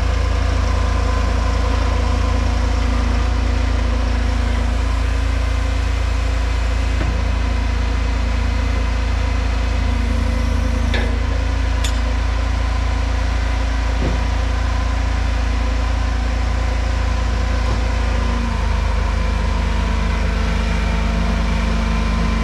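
A vehicle engine idling steadily, its low hum shifting slightly about eighteen seconds in.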